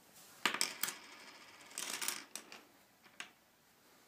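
Small plastic toy buttons and play-food pieces clattering and clicking on a hardwood floor as a toddler handles them, in three short bursts, the loudest about half a second in.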